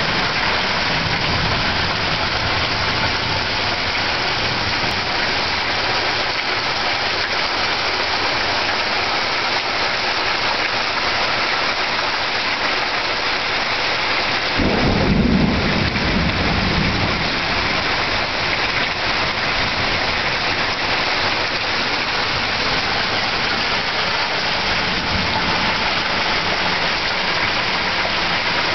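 Heavy rain pouring down in a steady loud hiss, with a low rumble of thunder swelling up suddenly about halfway through and fading after a couple of seconds.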